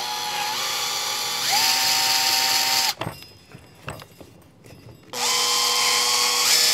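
Makita cordless drill boring into a wooden rifle stock. The motor speeds up about a second and a half in and stops just before halfway. After a pause of about two seconds with a few light clicks, it starts again and runs on.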